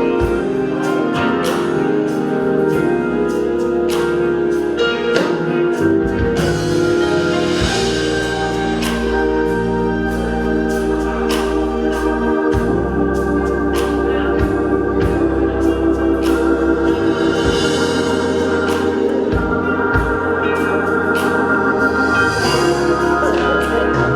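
Gospel-style organ music: held, changing organ chords with a steady drum and cymbal beat.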